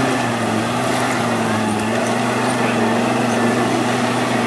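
SsangYong Musso 4x4's engine running steadily at low revs, its pitch wavering only slightly, as the SUV crawls across a steep side slope.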